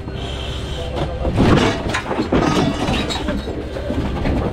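Fire truck engine running with a steady low hum inside the crew cab. From about a second in, a busy clatter of knocks and rustling as gear and bodies move in the cab.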